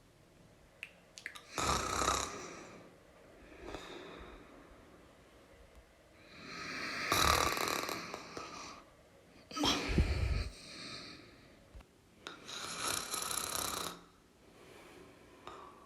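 A person snoring: four loud snores at uneven intervals, the one about ten seconds in deeper than the rest, with softer breaths out between them.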